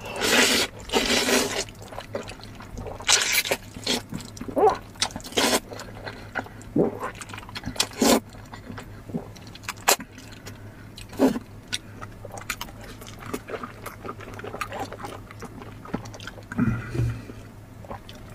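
A person slurping hot dry noodles close to the microphone, with long wet sucking slurps in the first second and a half, then shorter slurps, wet chewing smacks and clicks scattered through the rest.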